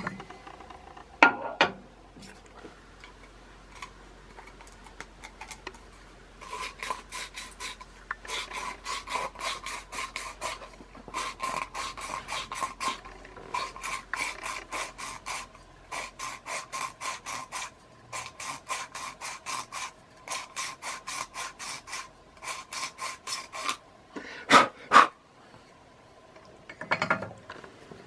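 Rapid rasping, rubbing strokes, about four a second, in runs of a few seconds with short breaks, as a cylinder is worked by hand; each stroke has a slight squeak. There is a sharp knock about a second in and two louder knocks near the end.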